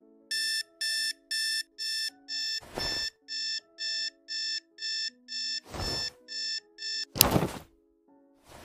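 Electronic alarm clock beeping about twice a second, with soft low background notes beneath; the beeping stops about seven seconds in. A few short noisy rustles break in, the loudest just as the beeping ends.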